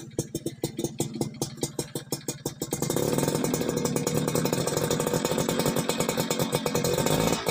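Suzuki Tornado GX two-stroke single-cylinder engine breathing through a Bravo RC100 aftermarket exhaust: it idles with evenly spaced pulses, then is revved up about three seconds in and held at high revs until it briefly drops near the end.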